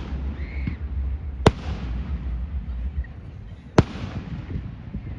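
Fireworks bursting: two sharp bangs, about a second and a half in and again near four seconds, over a low rumble.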